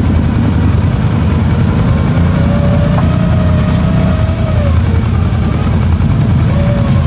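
ATV engines running hard in deep mud, their wheels spinning. There is a steady heavy rumble, and a whine rises and falls in pitch as one revs.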